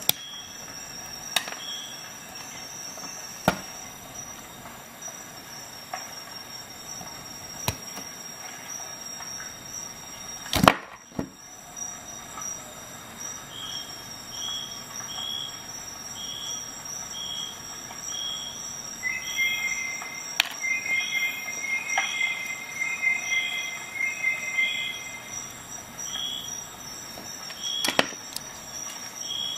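Steel multi-tool pliers clicking and snipping a small electrical wire: scattered sharp clicks, the loudest about a third of the way in. Under them runs a steady high-pitched whine, and faint short chirps repeat through the second half.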